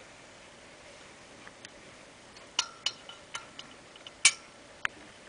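Several sharp clicks from the side knob switch and metal fittings of an electrified hurricane oil lamp as a hand turns and handles it, starting about halfway through, the loudest one near the end, some with a brief ring.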